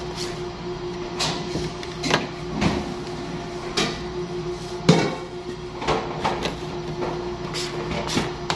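Metal bench scraper cutting and knocking on a stainless steel worktable, with irregular sharp knocks about once a second, the loudest about five seconds in, and plastic wrap being handled. A steady hum runs underneath.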